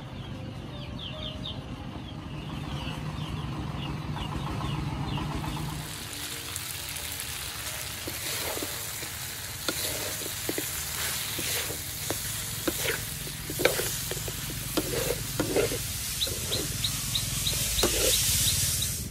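Metal spatula stirring meat in a metal wok over a fire, scraping and clacking against the pan amid a steady sizzle. The clacks begin about six seconds in and come thick and irregular until the end.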